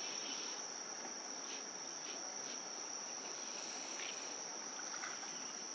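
Steady, high-pitched insect chorus: a continuous shrill trill that holds one pitch throughout.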